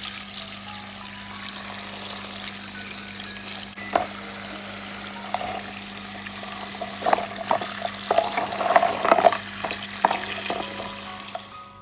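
Food sizzling in a hot pan, a steady hiss, with a knock about four seconds in and a run of light clinks and taps from a utensil between about seven and ten seconds in. The sizzle cuts off abruptly at the end.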